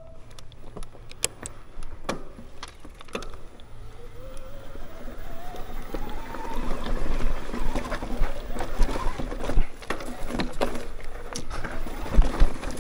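Mountain bike riding over a dirt trail: tyres rolling with rattles, clicks and knocks from the bike over rough ground, and a whir that rises in pitch from about four seconds in until about nine seconds.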